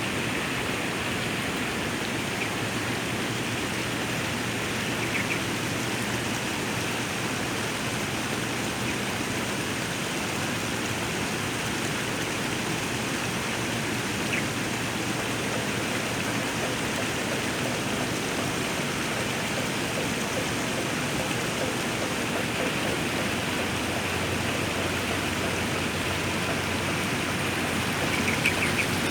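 Waterfall pouring steadily, a constant even rush of falling water.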